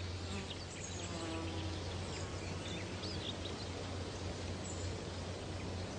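Insects buzzing, with a few faint bird chirps and a low steady hum beneath.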